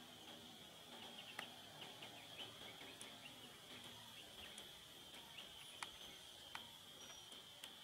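Faint, steady high-pitched insect drone, with scattered sharp clicks and a few short high bird chirps.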